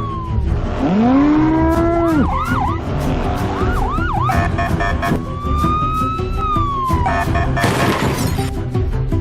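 Police car sirens sounding: long rising-and-falling wails with quick up-and-down yelps between them, over background music with a steady beat.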